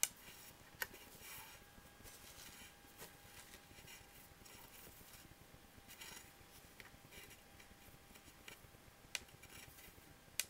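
Faint rustling and scraping of friendship-bracelet strings being knotted and pulled tight by hand, with a few soft clicks and a faint steady hum underneath.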